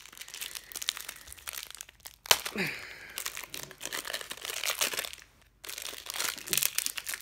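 Cube packaging being handled and unwrapped: crinkling, crackling and tearing, with one sharp snap about two seconds in and a brief pause near the end.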